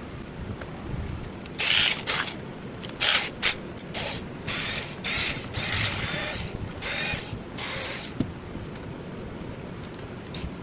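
12-volt cordless drill giving about ten short mechanical bursts over some six seconds, each a fraction of a second long, like the trigger being blipped or the clutch or chuck ratcheting.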